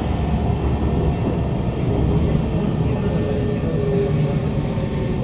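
Cabin running noise of a Kawasaki Heavy Industries C151 train with GTO-VVVF traction: a steady rumble of wheels on rail, with short pitched tones from the traction equipment as the train slows into a station.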